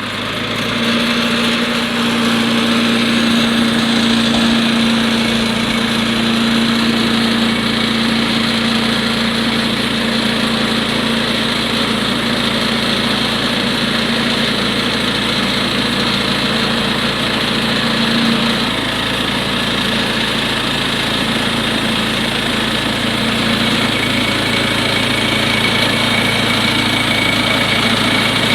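Small gas engine of a Woodland Mills HM122 bandsaw mill running wide open, driving the band blade through aspen to saw a 2x6. The sound is steady, with the engine note dropping slightly about two-thirds of the way through.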